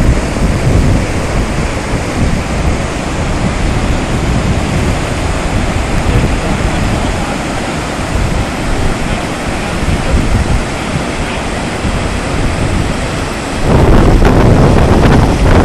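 Flash floodwater rushing in a steady roar, with wind buffeting the microphone. It gets louder and heavier in the low end near the end.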